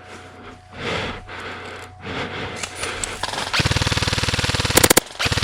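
Airsoft gun firing a rapid full-auto burst of about a second, starting a little past the middle, ending in a few louder sharp cracks. Before it, only soft rustling movement.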